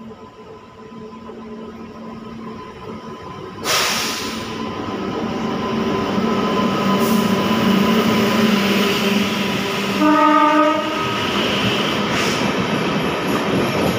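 Express passenger train running through a station behind an Indian Railways locomotive. Its rumble grows as it approaches and turns suddenly loud about four seconds in as the locomotive reaches the platform, then the coaches rush past. One short horn blast sounds about ten seconds in.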